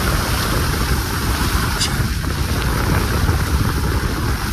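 A car driving over a wet, unpaved mountain track, heard from inside: a steady deep rumble of road and engine noise with a light click about two seconds in.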